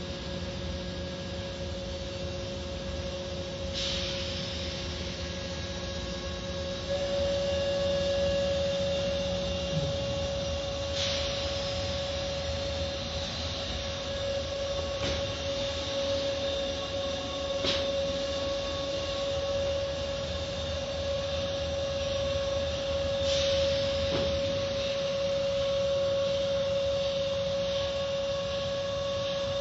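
Automatic tunnel car wash machinery heard from inside the car: a steady hum with a constant whine over it, and a low rumble that drops away about a third of the way through. A few brief swishes break in as water and cloth strips sweep over the car.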